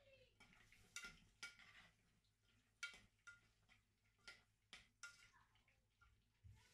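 Faint, irregular clinks and taps of a metal spoon against a cooking pot as stew is stirred and scooped, about seven light knocks in all.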